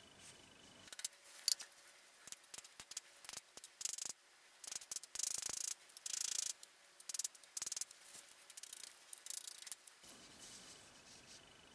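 A small steel armor plate clinking and scraping against the horn of a small anvil as it is worked to shape: irregular sharp metallic clicks, with a longer scrape around the middle.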